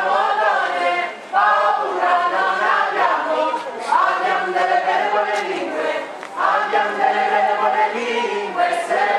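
A group of voices singing a song together in unison, in long held phrases with short breaks about every two and a half seconds.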